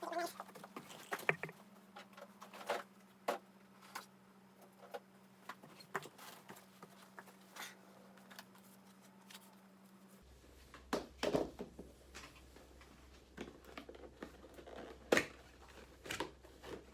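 Scattered small clicks, taps and rustles of hands handling computer parts and their packaging, over a steady low electrical hum that shifts lower about ten seconds in.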